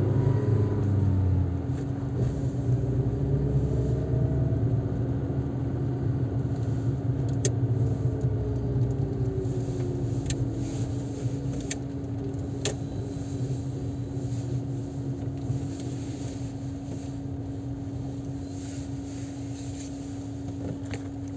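A car driving, heard from inside the cabin: steady engine and road rumble with a constant hum, a few sharp clicks in the middle, growing a little quieter toward the end.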